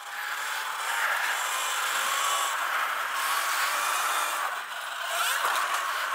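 Sur-Ron Light Bee electric dirt bike riding on a gravel and dirt track: a steady hiss of tyres on loose dirt, with the electric motor's thin whine drifting slightly up and down.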